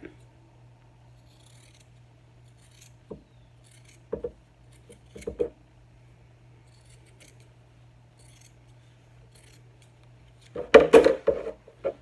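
Scissors snipping through layered cotton and muslin to trim a seam allowance: a few soft separate cuts over a faint steady hum, then a louder burst of noise near the end.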